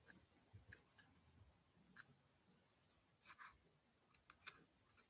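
Near silence with a few faint, scattered crackles and clicks, and a brief louder rustle about three seconds in: a dry, fibrous keepsake being turned over in the fingers.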